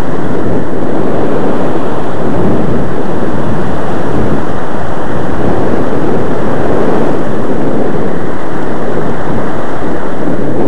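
Ocean surf washing and breaking over a rocky shore platform: a loud, steady rush of water with no single crash standing out, mixed with wind buffeting the microphone.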